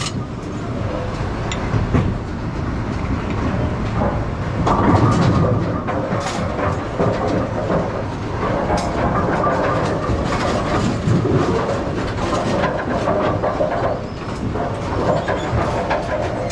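Bowling-alley pinsetter machinery running: a steady rumble with irregular clattering and knocks.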